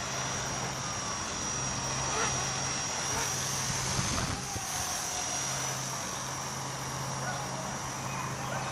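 Walkera 4#3B micro electric RC helicopter running with a steady high-pitched brushless motor whine and a low rotor hum, over a constant rushing of wind.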